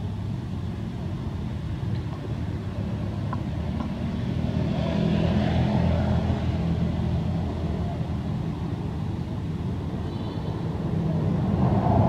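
A motor vehicle's engine runs nearby with a steady low hum. It swells louder about four to six seconds in and again near the end, as vehicles pass.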